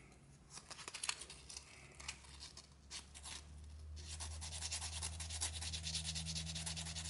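Hand rubbing a small piece of abrasive: light scratchy strokes, sparse at first, then a quicker, steady run of short strokes from about four seconds in, over a low steady hum.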